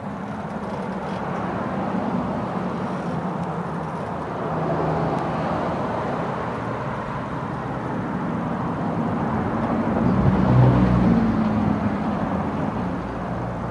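Bicycle riding along a concrete sidewalk: a steady rolling, rushing noise that swells about ten seconds in.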